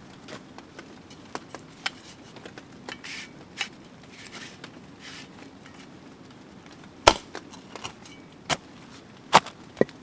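Rustling and small knocks of gear being handled, then four sharp metallic clicks in the last three seconds as a steel folding shovel is unfolded and its hinge locked into place.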